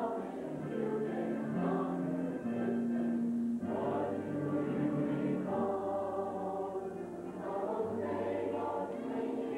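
Mixed-voice high school show choir singing in harmony, holding chords that change every second or so over a low bass line.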